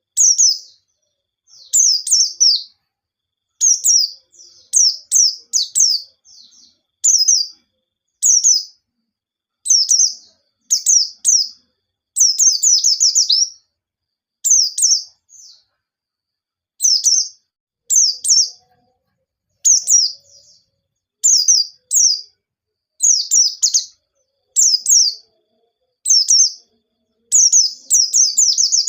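White-eye (pleci) singing a fast, high-pitched song in short phrases of quick downward-slurred notes, one phrase after another with brief pauses between them.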